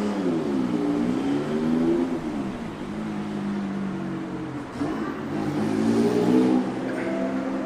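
A road vehicle's engine revving as it accelerates along the street. Its pitch rises and falls, holds steady, then climbs again about five seconds in.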